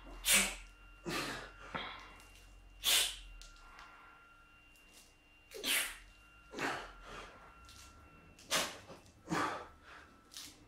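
A weightlifter's sharp, forceful breaths, hissing in and out through the mouth as he works through reps of a barbell overhead press. There are about eight short bursts in loose pairs, roughly a second apart, with quiet gaps between them.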